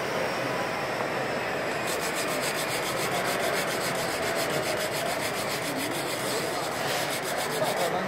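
A hand sanding block rubbed quickly back and forth over hardened wood filler in a timber beam, levelling the repair flush. It makes an even scraping rhythm of about five strokes a second that starts about two seconds in and stops abruptly near the end.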